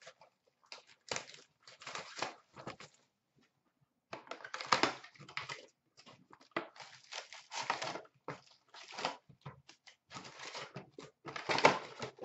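2016-17 Upper Deck SP Authentic hockey card boxes being torn open and their packs and paper inserts handled: irregular rustling, crinkling and tearing of cardboard and wrappers, with a short pause about three seconds in.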